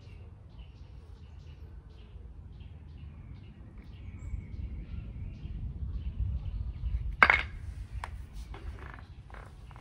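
Small birds chirping over and over in the background, over a low rumble that swells in the middle. About seven seconds in comes one sharp knock, the loudest sound, followed by a few lighter clicks.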